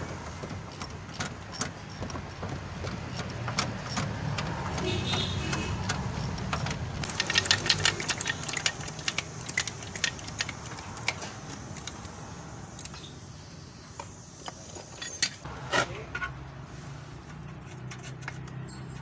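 Metal clicking and clinking of hand tools working on the lower control arm bolts, with a quick run of rapid clicks around the middle, over a steady low hum.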